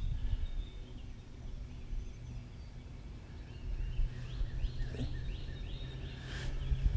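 Low rumble of wind on the microphone over open water. About four seconds in, a bird calls a quick run of short, repeated chirps, roughly three a second, for about two seconds.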